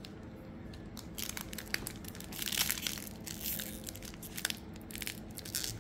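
Trading-card pack wrapper crinkling and tearing as it is opened by hand, in irregular crackles starting about a second in.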